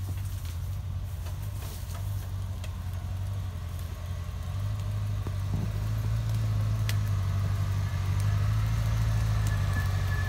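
Land Rover engine running at low, steady revs as the vehicle crawls off-road. Its pitch rises slightly about halfway through and it grows louder as it approaches.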